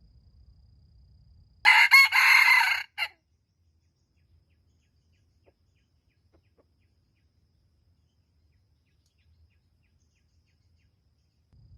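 A wild junglefowl rooster crowing once, a short loud crow of about a second and a half.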